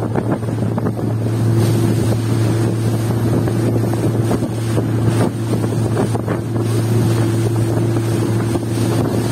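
Speedboat engine running at a steady pitch while the boat travels across choppy water, with wind buffeting the microphone. A higher steady tone joins about a second in, and the sound gets a little louder.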